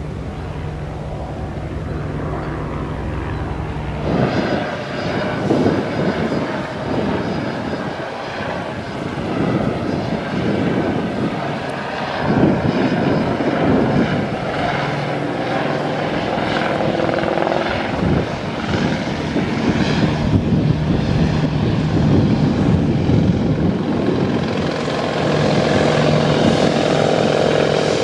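AS355 Ecureuil 2 twin-engine helicopter flying toward the listener. Its rotor chop sets in about four seconds in and grows steadily louder as it nears.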